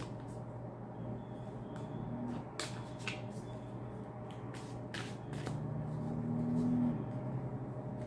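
A deck of oracle cards being shuffled by hand: scattered papery flicks and taps over a steady low hum.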